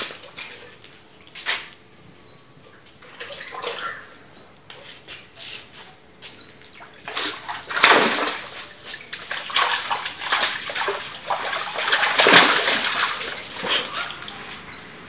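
A large fish, a giant gourami, thrashing in a landing net as it is scooped up in a concrete fish tank, with loud splashing in two surges starting about halfway through. Before that, a few short high chirps repeat about once a second over quieter water sounds.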